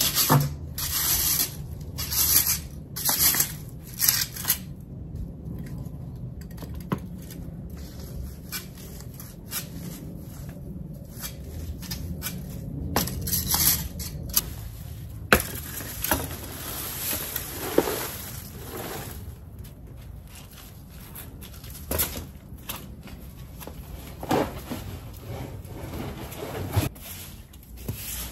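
A garden rake scraping and rustling through dry fallen leaves on paving and soil, in a string of separate strokes with pauses between them.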